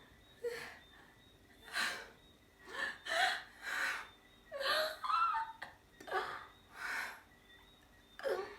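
A woman's acted pre-sneeze: sharp gasping breaths, about eight in a row roughly a second apart, a sneeze building up over and over without coming out.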